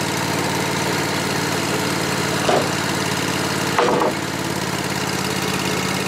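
Wood-Mizer band sawmill's engine running steadily, with two brief knocks, about two and a half and four seconds in.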